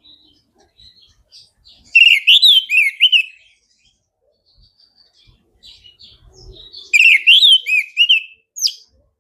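Orange-headed thrush singing: two loud, fast phrases of warbled, sliding notes, one about two seconds in and another about seven seconds in, with soft quieter notes between them.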